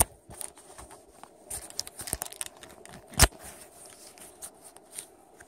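Rustling, crinkling handling noise from the body-worn camera rubbing against clothing and gear, with scattered clicks and one sharp knock a little past the middle.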